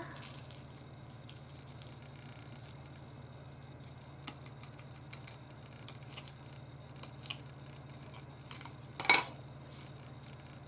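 Faint scattered clicks and ticks of tiny shaker bits, small stars and shells, being poured and nudged into a shaker card's foam cutout. There is one sharper knock a little after nine seconds.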